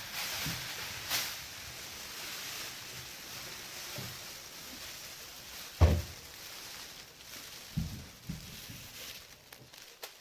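Rustling and crinkling of a thin foil emergency tent being handled while it is put up, with a few dull thumps, the loudest about six seconds in.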